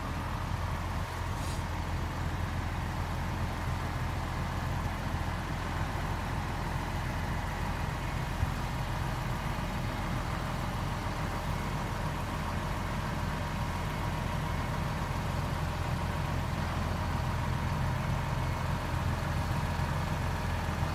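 Large farm tractor's diesel engine running steadily as it slowly tows a small wooden cabin on wheels. A single short click about eight seconds in.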